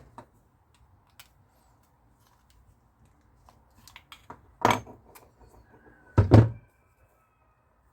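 Stainless steel whisk and strainer handle being handled and fitted together: a few light metal clicks, then two sharp knocks about four and a half and six seconds in, the second leaving a brief ring.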